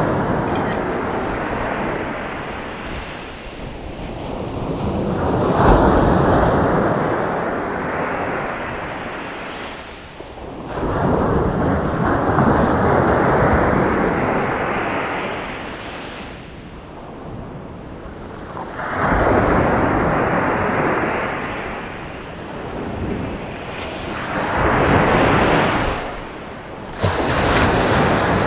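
Surf on a beach: waves breaking and washing ashore, each surge swelling and falling away, about one every six seconds, with one wave coming in abruptly near the end.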